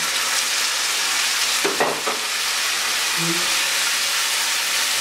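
Chopped tomatoes sizzling loudly in hot oil with browned onions in a wok as a spatula stirs them, with a short knock against the pan about two seconds in.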